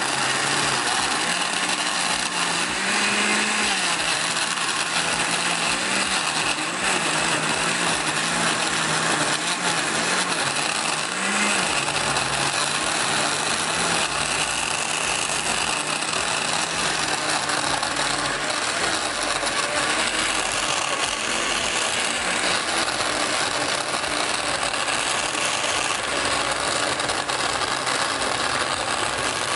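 Proctor Silex countertop blender running, its blades churning ice cubes and frozen strawberries into a smoothie. The motor's pitch wavers under the load of the frozen chunks for about the first twelve seconds, then settles into a steady hum as the mix turns smooth.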